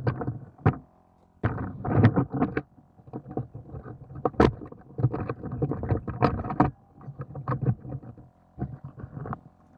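12 V portable air compressor (Tornado AC+ Pro) running steadily under load as it inflates a flat car tyre, heard as a faint steady hum. Over it, loud irregular rumbling surges come and go every second or so.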